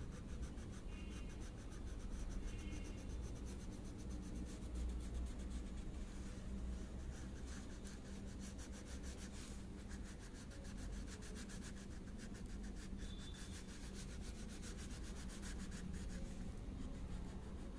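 Wax crayon rubbing on paper in many short back-and-forth strokes as a circle is coloured in, faint, over a low steady hum.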